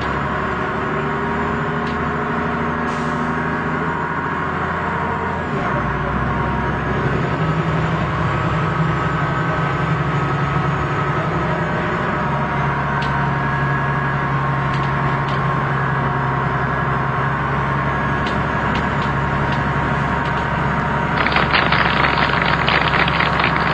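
A car driving in very strong wind: steady engine and road noise mixed with wind. About two seconds before the end a harsher hiss with a quick patter joins in.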